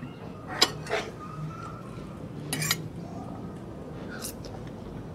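A metal fork clinking and scraping on a plate of spaghetti during eating: four short separate clinks, the one near the middle a little longer.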